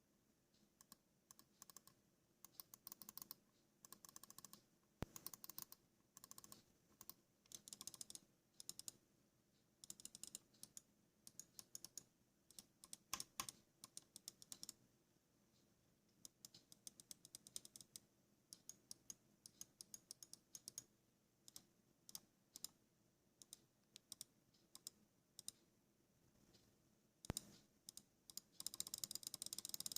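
Logitech G502 Proteus Core gaming mouse clicking: single clicks and fast runs of rapid clicks, with short pauses between the bursts. The densest run comes near the end.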